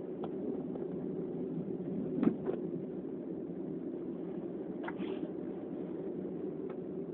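Steady low background hum, with a few faint breaths and one brief, slightly louder sound about two seconds in.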